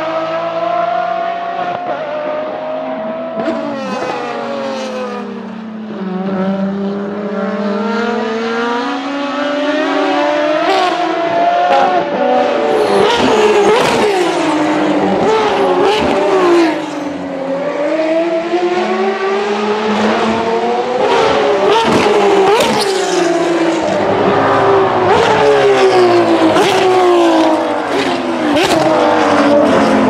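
Ferrari V12 track cars (599XX and FXX K) running hard past the trackside. Engine pitch falls under braking, then climbs and drops repeatedly through the gears, with many sharp cracks on the shifts in the second half.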